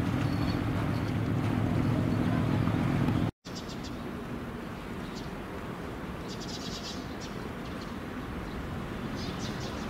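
A ship's engine drones low and steady for about three seconds, then cuts off suddenly. A quieter steady background noise follows, with short bursts of small-bird chirps several times.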